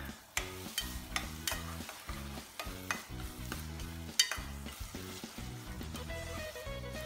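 A spatula stirring and scraping thick cooked vegetable stuffing in a pot, with sharp clicks each time it knocks against the pot, the loudest about four seconds in. Background music with a steady beat plays throughout.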